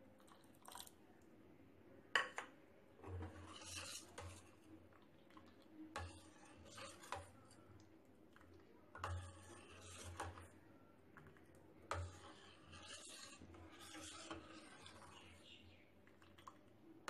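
Metal ladle scraping and knocking against a steel pan, in irregular strokes every second or two with one sharper knock about two seconds in, as hot milk is stirred while it curdles with lemon juice into chhena.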